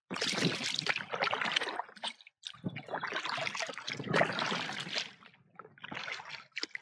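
Paddle strokes in lake water: splashing and water trickling off the paddle blade in two long bouts of about two to three seconds each, then fainter near the end.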